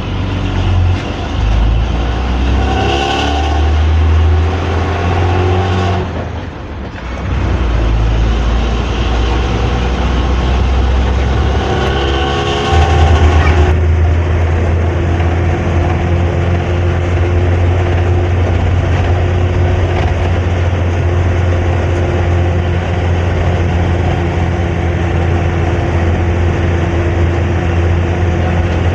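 Hino AK3-HR bus's diesel engine and exhaust, heard from inside the cabin at the rear, giving its deep snoring rumble ("ngorok"). Revs rise twice, with a short lull about six seconds in, then the engine settles into a steady drone for the second half.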